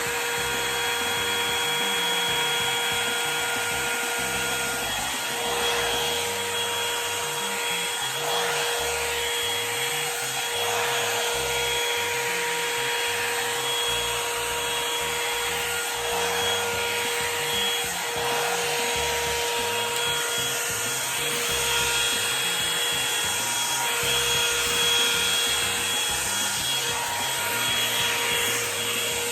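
Revlon One-Step hair dryer brush running on its high setting: a steady rush of blown air over a constant motor whine. The whine dips briefly every few seconds.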